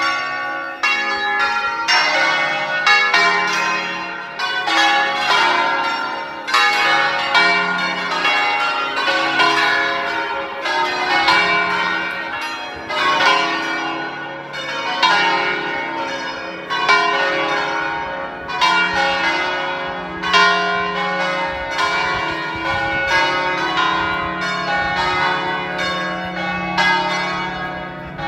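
The ten-bell church ring in D-flat, rung in the Veronese system: many bells striking one after another in quick, overlapping succession, the ringing swelling about every two seconds.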